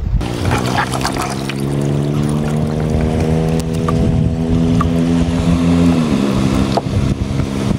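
An engine running at a steady pitch, its note dipping slightly about six seconds in.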